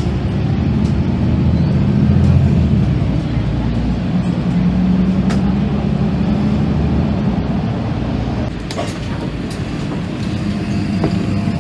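Articulated city bus heard from inside the passenger cabin while under way: a steady low engine drone with road rumble, which swells about two seconds in and again around five seconds. It eases off after about eight seconds as the bus slows for a stop, and a few short clicks come near the end.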